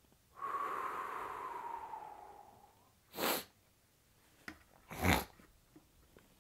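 A man breathing out slowly and audibly, with a faint whistling tone that drifts downward. Then comes a sharp sniff about three seconds in, and another, louder one about five seconds in.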